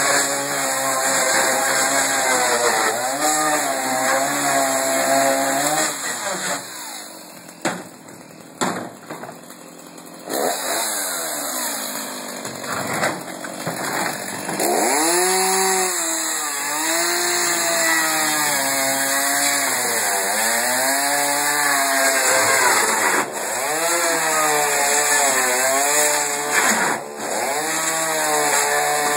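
Stihl chainsaw running and cutting into a wooden dresser, its engine pitch sagging and recovering again and again as the chain bites. It drops to a quieter idle from about six to ten seconds in, then revs back up and resumes cutting.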